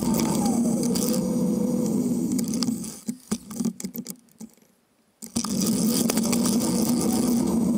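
Wind and road rumble on a bicycle-mounted camera while riding, with a falling whine near the start. In the middle the noise drops away to a few clicks for about two seconds as the bike slows behind stopped riders, then the rumble comes back as it moves off.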